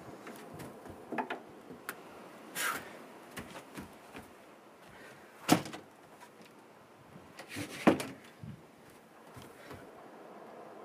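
A door being handled and a person moving about on a wooden deck: scattered knocks and clicks, a short scrape about three seconds in, and two sharper knocks about halfway through and about eight seconds in.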